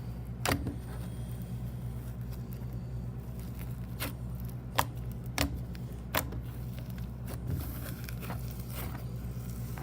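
Hands squishing a foamy slime of clear glue and shredded melamine sponge (Magic Eraser) pieces, with scattered sharp pops and crackles over a steady low hum.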